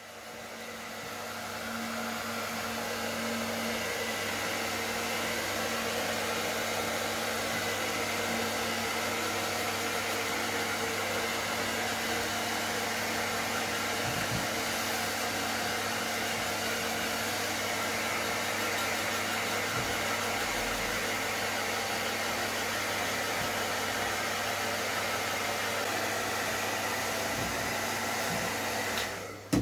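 Hot-air heat gun blowing steadily while shrinking Oratex covering film on a balsa wing, an even rushing hiss with a low hum. It winds up over the first couple of seconds and cuts off near the end.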